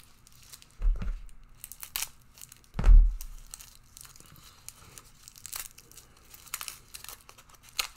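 Packaging being rummaged through by hand: crinkling and rustling with small clicks, and two dull thumps about one and three seconds in as items are set down, the second the louder.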